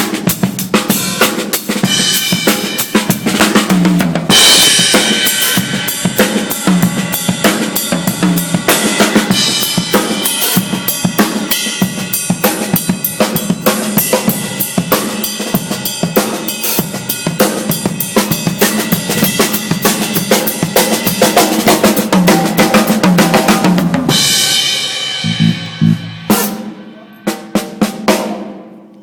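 Solo drum kit playing a steady funky groove of kick, snare and cymbals, with the cymbals washing louder from about four seconds in. Near the end the groove stops and the cymbals ring out, followed by a few low drum strokes that die away.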